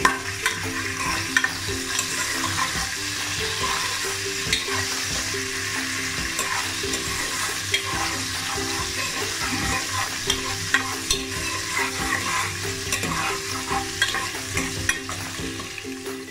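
Chopped garlic, onion and green chillies sizzling in hot oil in a metal pot, stirred with a steel spatula that scrapes and clicks against the pot again and again. The aromatics are being fried until fragrant.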